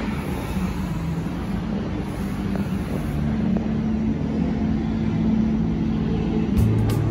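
Steady din of a crowded indoor water-park hall: a low rumble with a constant hum under a reverberant wash of distant swimmers and water. A few sharp clicks come near the end.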